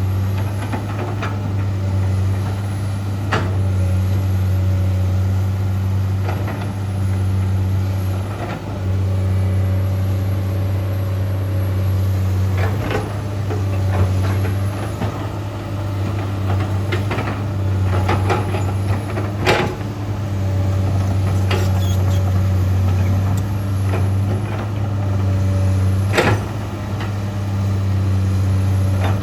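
Komatsu PC200-8 excavator's six-cylinder diesel engine running steadily under hydraulic load while digging and casting soil, with several sharp clanks from the bucket and boom linkage.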